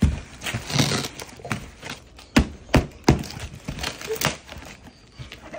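Duct-taped cardboard gift packaging being wrestled open by hand: irregular sharp knocks and thuds, with longer stretches of rustling and tearing about a second in and again near four seconds.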